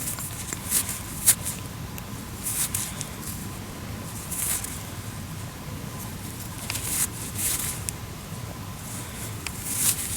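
Fingers rubbing and crumbling damp soil off a freshly dug, green-encrusted coin: short bursts of scratchy rustling, with a sharp click about a second in, over a faint steady tone.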